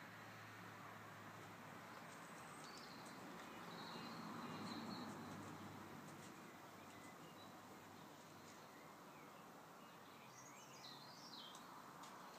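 Quiet outdoor garden ambience with faint distant birdsong: a few short chirps about three seconds in and a warbling phrase near the end.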